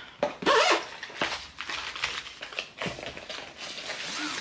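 Hands handling the packaging and contents of a diamond painting kit: plastic crinkling with a scatter of light taps and clicks.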